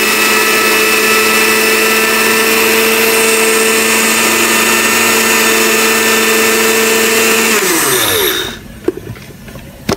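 Countertop blender motor running steadily, grinding sesame seeds toward a fine powder. About seven and a half seconds in it is switched off and winds down, falling in pitch, followed by a couple of light clicks.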